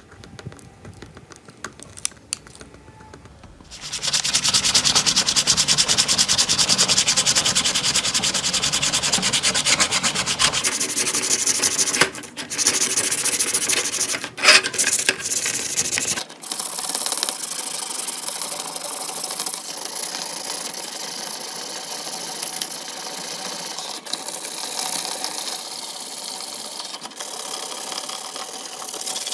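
Sandpaper rubbed by hand over the plastic body shell of a toy remote-control car: steady scratchy sanding starting about four seconds in, loudest in the first stretch, after a few light clicks.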